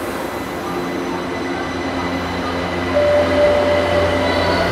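São Paulo Metro Line 2 train running in the station with a steady mechanical hum. About three seconds in it gets louder and a single steady high tone sounds for over a second.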